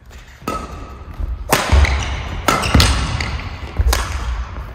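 Badminton singles rally: rackets smacking the shuttlecock roughly once a second, with heavy footsteps thudding on the wooden court floor.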